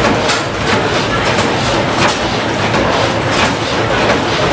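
Antique hot-tube-ignition gas engine running, with sharp knocks and clicks about twice a second over a steady mechanical din.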